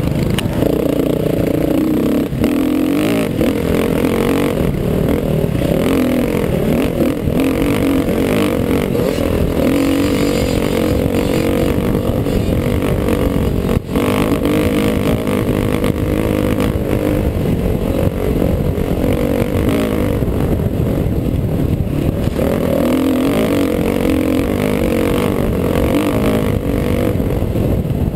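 Four-stroke dirt bike engine running hard at high revs as the bike races over rough desert ground, heard from the rider's helmet camera. The sound holds steady throughout, with one brief dropout about halfway.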